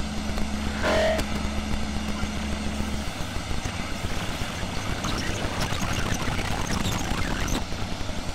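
Experimental electronic sound from a Ciat-Lonbarde Cocoquantus and a Korg Volca FM played through a small portable speaker: a steady low drone that cuts off about three seconds in, a short pitched blip about a second in, then a grainy, crackling noise texture.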